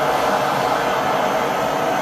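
Handheld gas torch burning with a steady, even rushing noise as its flame heats a steel rod clamped in a vise, softening it for bending.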